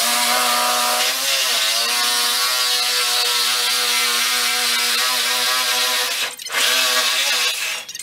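Corded reciprocating saw running and cutting through a walk-in refrigerator wall panel, a steady buzzing whine that stops briefly about six seconds in, starts again and stops just before the end.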